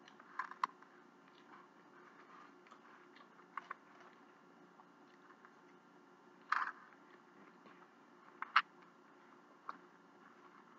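Quiet eating sounds: a handful of short, sharp mouth clicks and smacks from chewing, with a fork, spaced a second or more apart. The loudest come about two-thirds of the way through.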